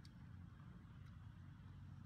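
Near silence: a faint, steady low rumble, with a faint click right at the start and another about a second in.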